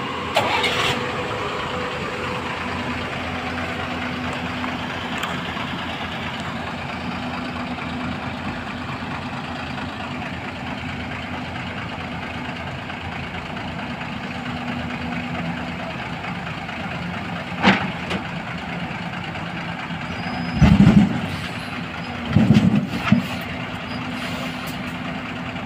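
Heavy diesel machinery running steadily as an excavator works its hydraulic boom to push itself off a truck's flatbed. A sharp knock comes about two-thirds of the way through, then two loud low bursts near the end.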